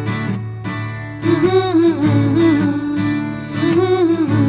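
Background music from a Hindi song: acoustic guitar strumming chords, with a wavering melody line coming in about a second in, between sung lines.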